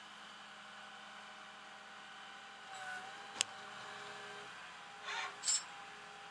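Steady mechanical hum, with a single sharp click a little past halfway and two short scraping bursts about five seconds in.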